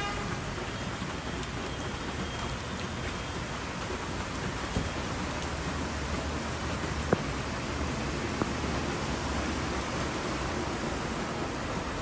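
Heavy rain pouring down onto a flooded street as a steady hiss, with two brief sharp ticks about five and seven seconds in.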